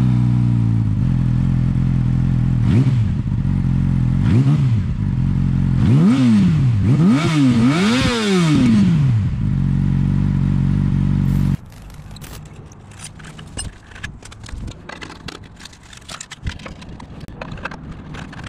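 Yamaha R6 inline-four engine idling through an M4 slip-on exhaust and revved five times, the revs climbing higher each time with the highest about eight seconds in. The engine sound cuts off abruptly about eleven seconds in. After that come quieter metal clicks and scrapes as a slip-on pipe and its clamp are fitted.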